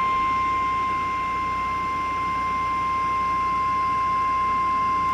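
Weather-radio emergency alert tone: one steady, unbroken high beep at about 1050 Hz, which signals that a warning message follows.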